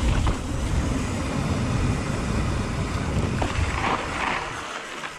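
Wind buffeting the camera microphone and tyre rumble from a mountain bike riding fast down a dirt and gravel trail, with the rattle of the bike over the ground. It dies down near the end as the bike slows.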